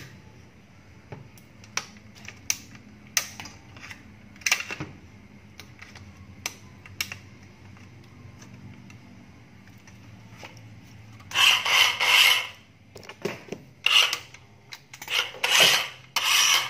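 Scattered clicks and knocks of a cordless power tool being handled, then a National cordless saw run in several short trigger bursts from about eleven seconds in, each burst stopping sharply.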